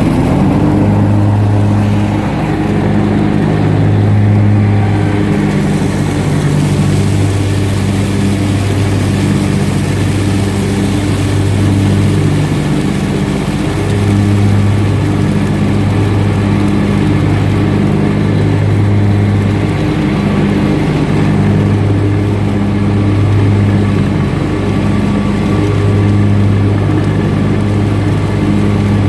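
Zero-turn mower engine running steadily under mowing load, a low hum that swells and fades in a regular waver every second or so.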